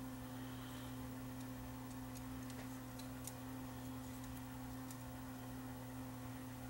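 Faint scattered clicks and light handling noise of fingers working magnetic tape at the hub of an opened plastic 8-track cartridge, over a steady low electrical hum.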